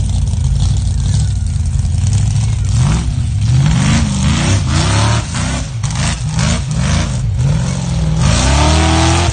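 Formula offroad buggy's engine running under load as it climbs a forest slope. It runs steadily for the first few seconds, then revs up and down again and again in quick bursts, ending with a longer rising rev.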